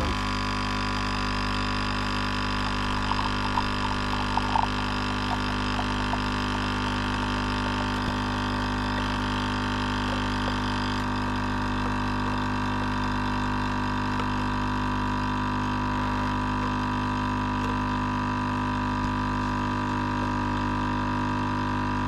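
Kotlie 4-in-1 capsule coffee machine's pump running steadily while it brews an espresso, a continuous drone of several fixed tones, with a few faint ticks early on from the coffee running into the glass cup.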